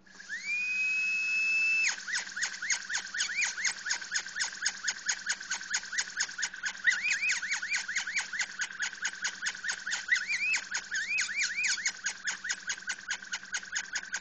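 A high-speed rotary carving tool spins up to a steady high whine, then stipples an eggshell with the side of a football-shaped burr: rapid taps about four a second, the whine wavering in pitch with each touch.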